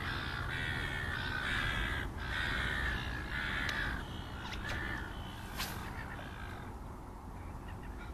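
Crows cawing: a run of about five harsh, drawn-out calls in the first half, fading after, over a steady low rumble.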